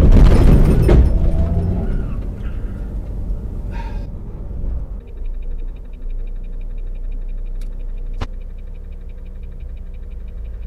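A Chevrolet Camaro's engine revving hard beside a semi truck, a loud burst in the first second or two that fades out. It gives way to the steady low rumble of the truck cab, with a faint high ticking and a single click about 8 seconds in.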